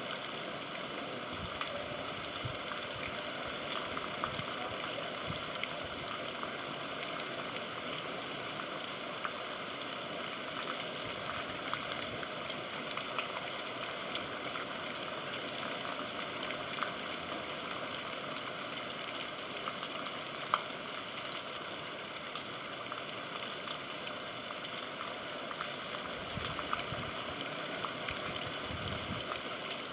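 Steady rain falling, an even hiss with scattered sharp ticks of individual drops striking.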